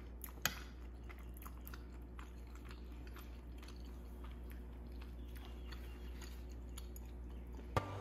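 Faint close-up chewing of soft, chewy rice cakes (tteokbokki), a run of small wet clicks over a low steady hum, with one louder click about half a second in. Music comes in right at the end.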